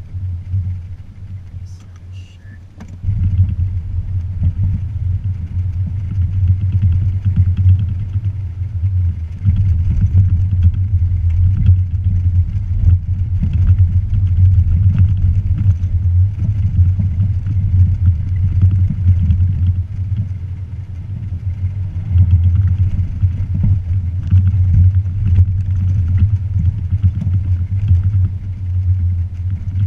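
2016 Toyota Tacoma TRD Off-Road being driven off-road: a loud, uneven low rumble of engine and rough ground. It grows louder about three seconds in and eases for a moment a little past the middle.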